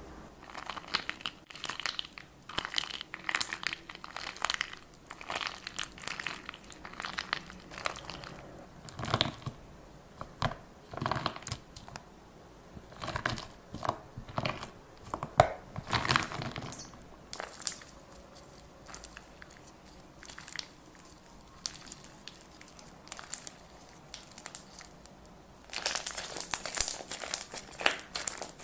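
Crunchy slime being squeezed and pressed, crackling and crinkling in repeated clusters of sharp little pops, with a denser, louder run of crackling near the end.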